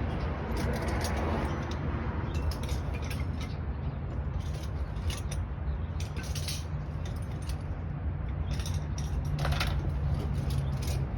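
Hand tools clinking and rattling as they are handled and sorted, a string of scattered metallic clicks over a steady low hum.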